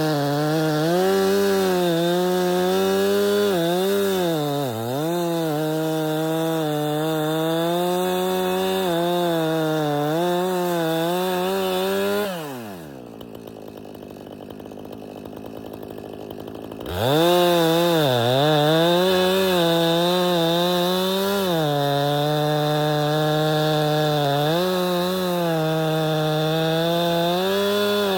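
Two-stroke chainsaw at full throttle cutting through a tree trunk, its pitch dipping and recovering again and again as the chain bites into the wood. About twelve seconds in the throttle is released and the saw drops to a low idle for about four seconds, then revs back up and keeps cutting.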